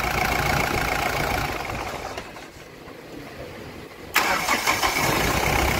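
Freshly overhauled Mahindra Bolero Maxi Truck diesel engine running, then switched off and winding down about two seconds in. After a short pause it catches at once on the starter at about four seconds and runs again. This is a hot restart test of the rebuilt engine, which starts easily when warm.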